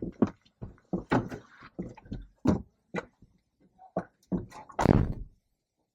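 RV entry door being opened and handled: a string of knocks and clicks, then a heavy thump about five seconds in as the door is shut.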